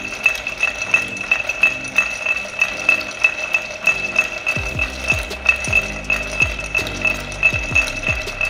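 Long metal bar spoon stirring ice cubes around a cut-glass mixing glass: a steady, rapid clinking of ice against glass, about four or five clinks a second. This is the short stir that rinses the ice before its melt water is strained off.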